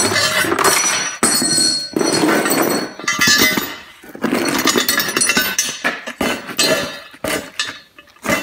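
Chain on a Scotch block clinking and rattling while the block is handled and set down behind a wheel on concrete, with knocks and scrapes throughout.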